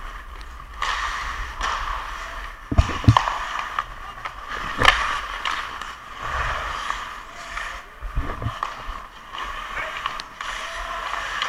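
Ice hockey skate blades scraping and carving across the ice in repeated strides, with a few sharp knocks in the first half.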